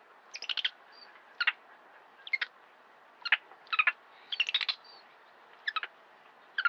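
Monkey calling in short, sharp, high chirps and squeaks. The calls come in small clusters about once a second.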